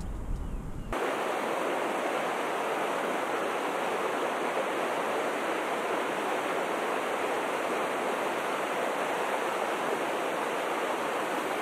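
Steady rush of river water running over rocks in a riffle. It starts abruptly about a second in and holds even, with no other events.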